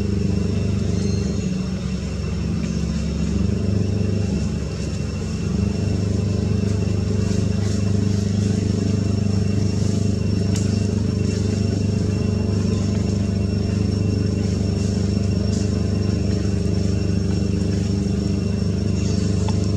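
Steady low drone of a running engine, holding the same pitch throughout, with a faint steady high whine above it.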